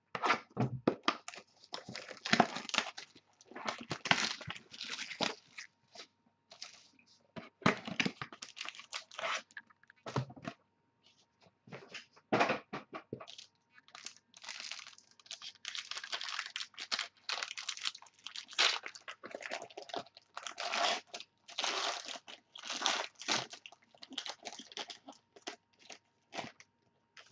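Sealed trading-card packs and their box wrapping being torn open and crinkled by hand, in irregular bursts of crackling and tearing with short pauses between.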